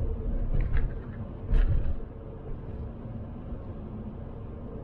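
VW T4 Transporter van driving, heard from inside the cab: steady low engine and road rumble with a faint steady hum. A sharp knock about one and a half seconds in.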